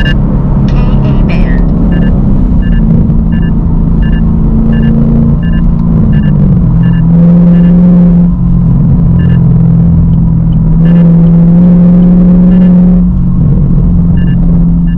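Gen 6 Camaro SS's 6.2-litre LT1 V8 running steadily through an exhaust with the secondary catalytic converters deleted, its drone rising and falling a little in pitch and loudness. A light regular ticking, about one tick every 0.7 s, runs over it.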